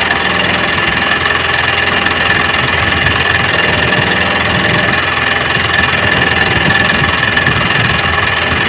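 A small engine aboard an outrigger fishing boat idling steadily, with a constant high whine over the running.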